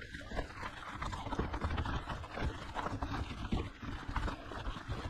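Mountain bike rolling fast down a steep dirt and gravel trail: the tyres crunch over loose ground while the bike clatters with an irregular run of small knocks and rattles over the bumps, over a steady low rumble.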